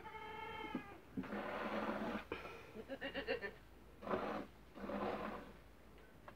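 Goat being milked by hand: jets of milk hiss into a part-filled bucket in bursts, one after another. A goat bleats briefly at the start, and again with a quavering bleat about three seconds in.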